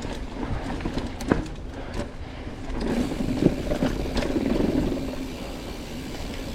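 Mountain bike rolling over a dirt trail: tyre noise on the dirt and the bike rattling, with sharp knocks from bumps. The rattling grows louder and rougher from about three seconds in for a couple of seconds.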